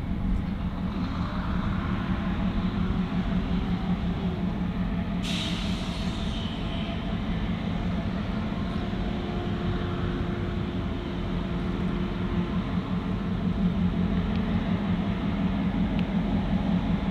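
Grand Trunk Western GP38-2 diesel locomotive, its EMD 16-645 two-stroke V16 giving a steady low rumble as it approaches at low speed. A short sharp hiss of air comes about five seconds in.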